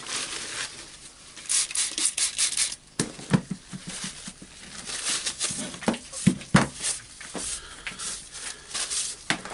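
Paper towel rubbing and crinkling in gloved hands as a power tool's cord is wiped clean, in a run of short scrubbing strokes, with a few knocks on the wooden workbench.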